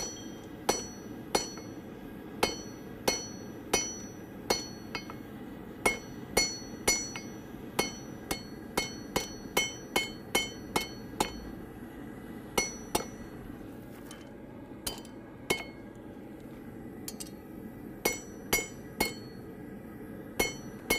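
Hand hammer striking hot steel on an anvil, drawing out a square taper on a coat-hook stem. The blows come steadily, about one and a half to two a second, each with a high anvil ring. They pause for a few seconds around the middle, then resume.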